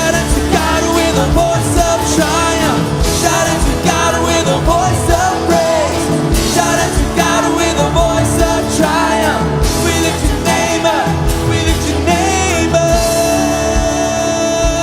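Live worship band playing: drums, bass, guitars and piano under voices singing, ending on a long held sung note.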